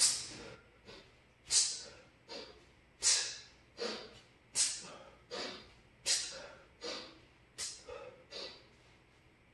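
A man's sharp, forceful exhales, one with each two-handed kettlebell swing, about every second and a half. There are six loud hissing breaths with quieter breaths between them.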